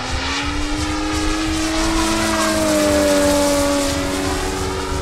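Desert Aircraft DA-200 two-stroke petrol engine and propeller of a 41% CARF Extra 330 SC radio-control aerobatic plane, running at power as the plane flies past. The note swells to its loudest about three seconds in and then drops slightly in pitch.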